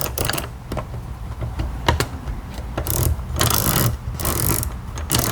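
Dent repair hand tools working a metal panel: a run of short rasping, ratchet-like bursts, each about half a second long, with a single sharp click about two seconds in, over a steady low hum.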